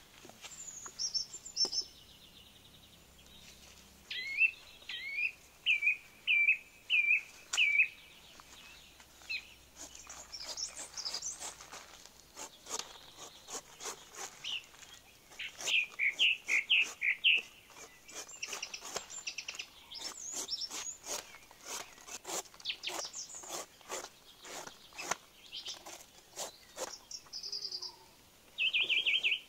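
Birds chirping and singing, with a run of about six short repeated notes between roughly 4 and 8 s and another cluster of notes around 16 s. Through the middle and latter part, many sharp clicks and scrapes of a knife slicing the spiky rind off a jackfruit.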